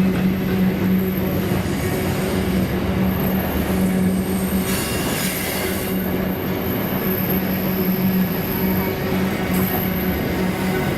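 Freight train wagons rolling past, a steady rumble and low hum with a thin, high wheel squeal that comes and goes. Briefly louder about five seconds in.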